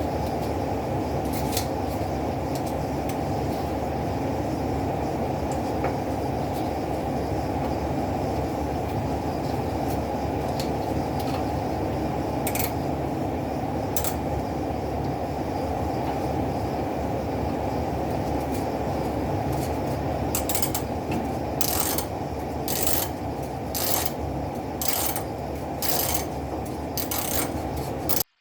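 A steady low mechanical hum. In the last several seconds a run of sharp clicks joins it, about one a second.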